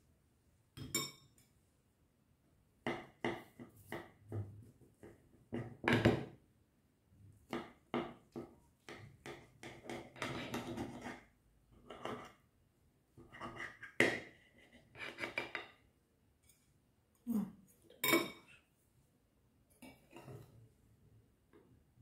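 Metal utensils clinking and scraping on ceramic: a small metal sieve and a knife set down in a ceramic bowl, and a knife and cake server cutting and lifting slices of cake off a ceramic plate. The clinks are irregular, and one about 14 seconds in rings briefly.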